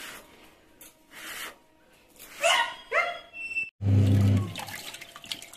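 A small child's two short, high squeals, each rising and then quickly falling in pitch. After that, a washing machine's low hum starts abruptly and fades within about a second, with foamy water churning.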